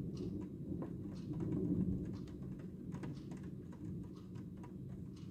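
Scattered raindrops ticking irregularly on nearby surfaces, several small clicks a second, over a low steady rumble.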